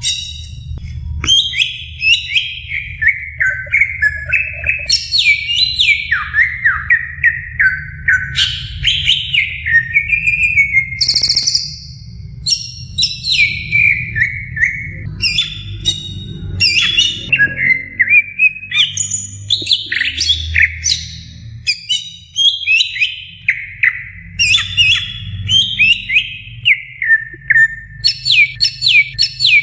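Caged greater green leafbird (cucak ijo) singing non-stop: a rapid, varied run of loud whistled phrases, chirps and fast trills with hardly a pause, over a low steady hum.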